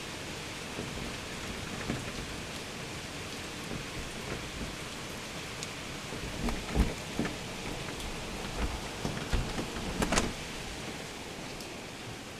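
Steady rain falling, heard as an even hiss. A few knocks and thumps cut through it between about six and ten seconds in, the loudest near the end of that stretch.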